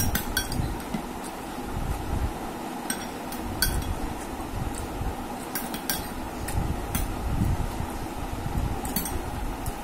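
A metal spoon clinking against a glass bowl of raita as it is scooped: about eight sharp, separate clinks scattered through, over a steady background hiss.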